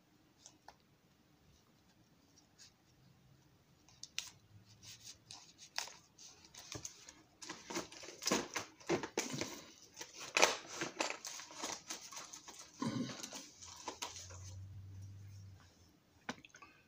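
Hands rummaging through and handling small model-building parts: irregular rustling, crinkling and light clicks, sparse at first and busier in the middle.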